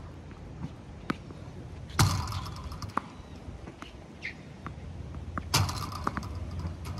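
Tennis racket striking balls fed from a ball machine: two hard hits about three and a half seconds apart, with fainter knocks between.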